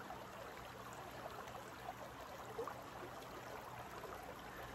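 Shallow forest creek running over rocks: a faint, steady rush of flowing water.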